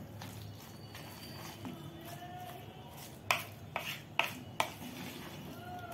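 Spoon stirring thick grated-corn and gram-flour batter in a plastic bowl, with a soft wet mixing sound and four or five sharp clicks of the spoon knocking the bowl between about three and five seconds in.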